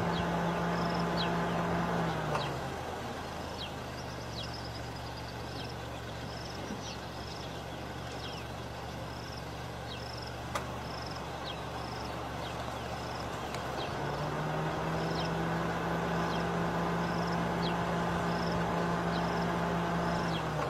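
Vehicle engine idling with a steady hum; its pitch drops about two seconds in and rises again from about fourteen seconds in. Short high chirps repeat about twice a second over it, and there is a single sharp click about halfway through.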